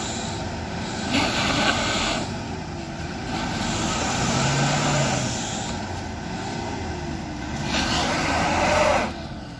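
Off-road 4x4 vehicle driving over rough ground, its engine note wavering up and down under steady road noise. There are louder surges of noise about a second in and again near the end.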